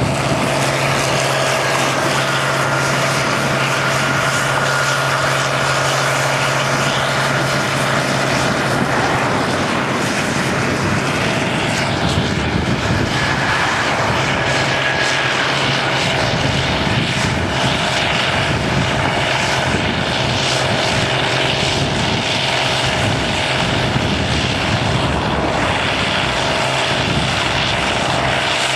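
Combine harvester running steadily at work in the wheat: a continuous, even engine drone with a steady low hum underneath.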